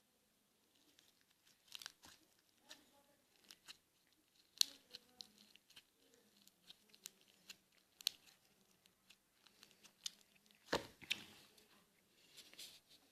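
Slime being squeezed and stretched by hand, giving faint, irregular small pops and crackles, with a louder run of pops about eleven seconds in.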